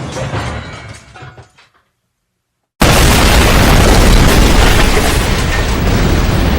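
Explosion sound effects: the rumble of one blast dies away over the first couple of seconds, then after a second of silence another explosion starts abruptly and keeps rumbling loudly with heavy bass.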